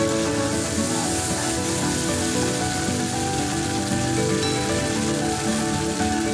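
Oil sizzling steadily in a kadai as the cumin tempering for jeera rice fries, under background music.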